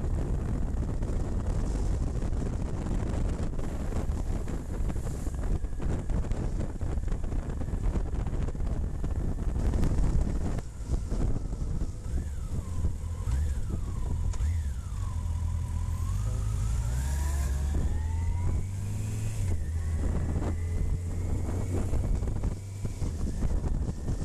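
Wind buffeting a helmet-mounted microphone over the steady rumble of a motorcycle on the move. About halfway through the engine note drops and then climbs steadily as the bike slows and accelerates again.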